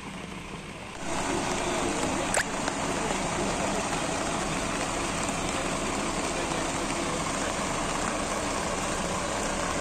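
Steady rain hiss that gets louder about a second in, with one brief click a little later.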